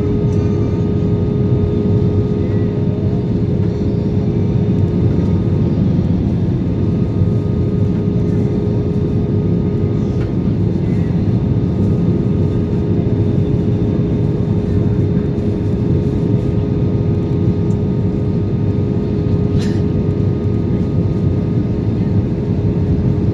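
Steady jet-engine and airflow noise heard inside an airliner cabin, a constant low rumble with a steady hum-like tone over it.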